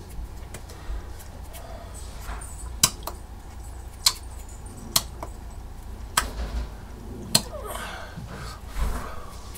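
Hands smacking and tapping against each other and the body during sign language: several sharp smacks about a second apart, over a low steady hum.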